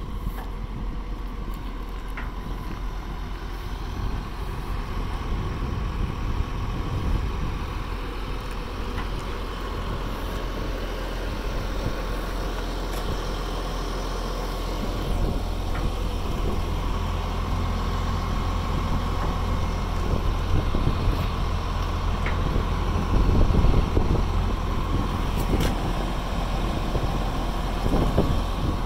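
Caterpillar 963C track loader's diesel engine idling steadily: a continuous low rumble with a faint steady whine. It grows somewhat louder about three-quarters of the way through.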